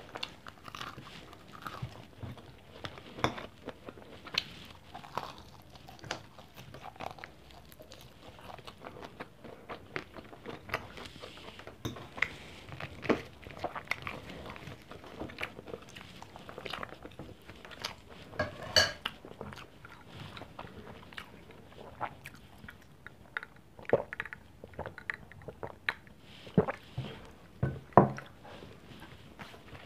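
Close-up mouth sounds of chewing and biting fried pork chop and rice eaten by hand, with many small sharp clicks and a few louder knocks.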